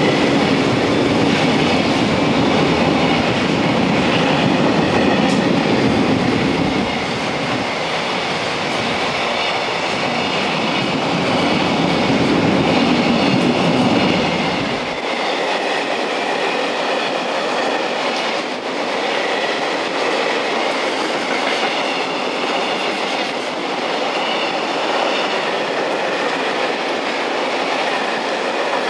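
Container freight train wagons rolling past at speed, their wheels clattering over the rail joints in a steady run. The deep rumble drops away about halfway through while the wheel and rail noise carries on.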